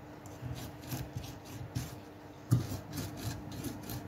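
Mezzaluna rocking and chopping through diced red onion and carrot on a wooden cutting board: an irregular run of short chopping taps and scrapes, with one louder knock about two and a half seconds in.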